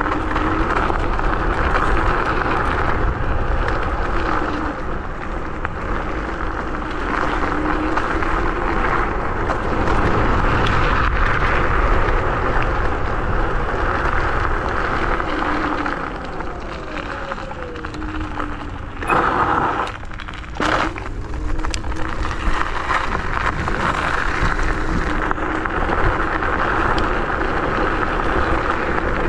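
MS Energy X10 electric scooter riding along a gravel path: steady tyre noise on the gravel with a low rumble, and a faint motor whine sliding up and down in pitch with the speed. A couple of brief, loud bumps about two-thirds of the way in.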